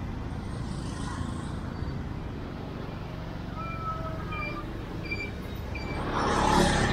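Street traffic noise: a steady rumble of road vehicles, with a vehicle passing close and swelling louder near the end. A few faint, short high chirps come through in the middle.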